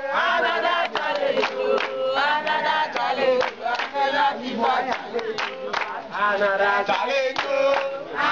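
A group of young men and women singing together, with rhythmic hand-clapping at a fairly even beat.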